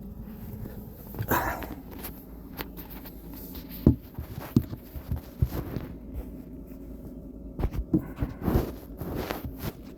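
Hand-working noises on the plastic steering column trim and turn signal switch: scattered sharp clicks and knocks, with short rustling scrapes about a second in and near the end, over a steady low hum.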